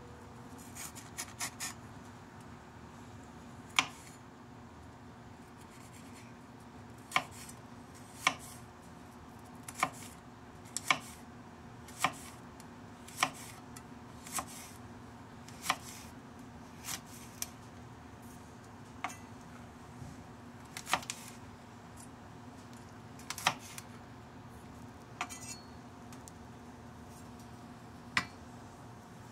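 Santoku knife chopping a fresh red chili pepper on a plastic cutting board: sharp single blade strikes on the board at an unhurried, uneven pace, roughly one every second or two, with a quick run of four strikes near the start.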